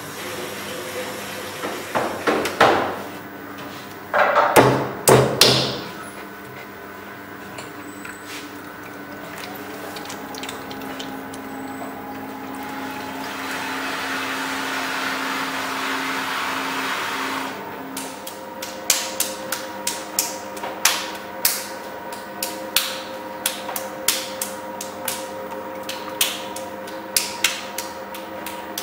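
A few loud knocks, then an electric potter's wheel running with a steady hum that glides up in pitch as it speeds up. A soft wet rushing comes from hands working clay on the spinning wheel, followed by a long run of sharp taps, about one or two a second.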